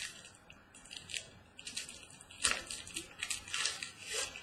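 Trading-card packaging being handled and opened: irregular crinkling and crackling of a wrapper, busier and louder through the second half.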